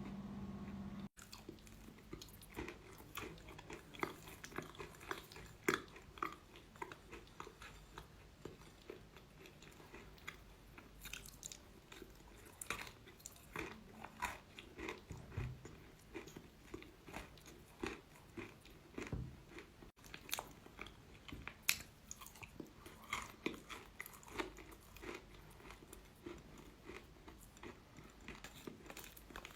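Close-up biting and chewing of hard chalk: many irregular, sharp crunches and crackles, a few of them much louder. A low steady hum in the first second stops abruptly about a second in.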